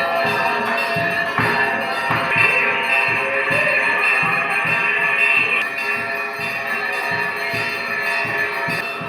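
Hindu temple bells ringing continuously with rapid, rhythmic metallic strikes, the bell-ringing of the mangla aarti.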